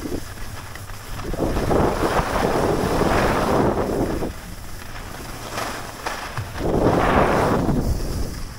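Skis scraping and hissing over packed snow in two long surges, about a second in and again near the end, with wind rumbling on the microphone underneath.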